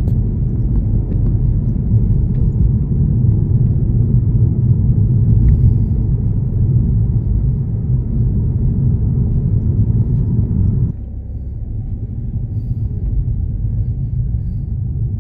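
Steady, loud low rumble without distinct tones; it drops abruptly to a lower level about eleven seconds in.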